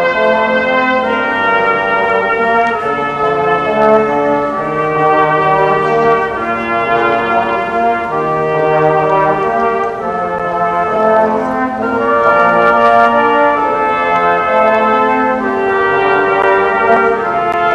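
Small brass ensemble led by trumpets playing a slow piece in held, overlapping notes that change every second or two.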